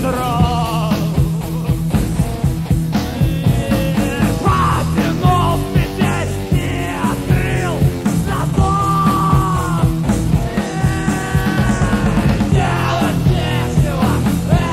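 Rock band playing a loud, busy rock song, with drums keeping a steady beat under bass and electric guitar, and a melodic line that bends in pitch over the top.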